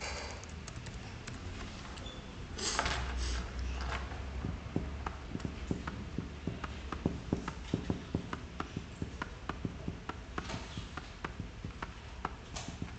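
Computer keyboard keys clicking in a quick, uneven run of taps from about four seconds in until near the end, after a brief rustling hiss around three seconds in.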